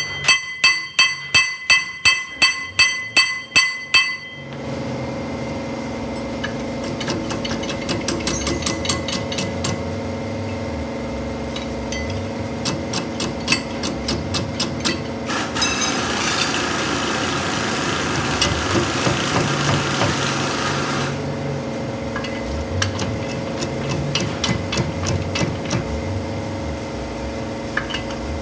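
A hammer strikes metal about three times a second for roughly four seconds, each blow ringing. A steady mechanical hum follows, with scattered light ticks and a stretch of hissing about halfway through.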